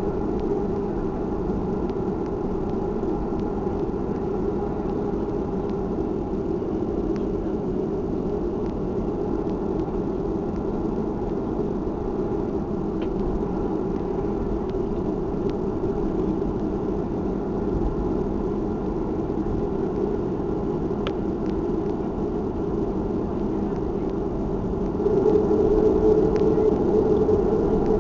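Steady cabin drone of a Boeing 737-300 taxiing after landing, its CFM56 engines turning at low power. About 25 seconds in, the engine sound grows louder, a brief increase in thrust.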